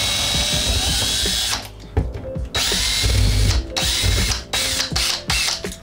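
Cordless drill whirring in several stop-start runs: one long run through the first second and a half, then shorter bursts.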